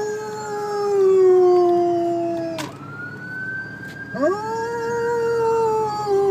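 A dog howling inside a car: a long howl that sags slightly in pitch and breaks off about two and a half seconds in, then a second long howl starting about four seconds in.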